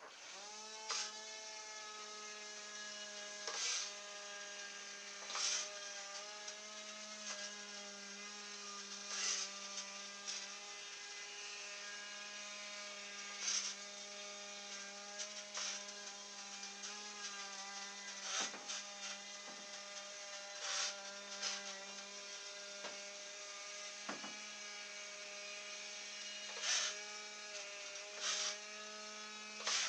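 Small brushed quadcopter motor on a radio-controlled fan boat spinning a small air propeller: a steady high whine that spins up at the start and dips briefly in pitch a few times as the throttle eases. With the smaller propeller fitted, the motor is revving higher. Short sharp knocks come now and then over the whine.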